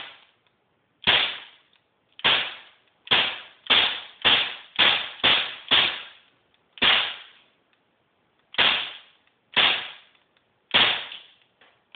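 Crosman P10 CO2 BB pistol fired about a dozen times in a row, each shot a sharp crack. The shots come roughly a second apart, quickening to about two a second in the middle of the string.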